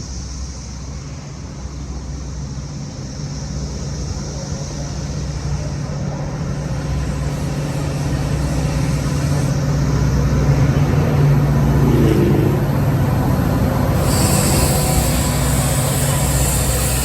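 Train approaching the station, a steady low hum that grows louder over about ten seconds, with a higher hiss joining about fourteen seconds in.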